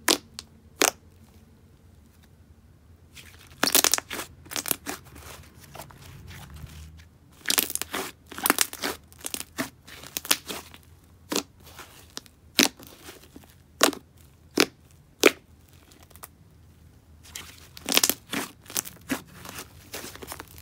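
Hands squeezing and stretching a soft, thick, creamy clay slime, making irregular sharp pops and clicks in clusters. There is a lull of a couple of seconds near the start.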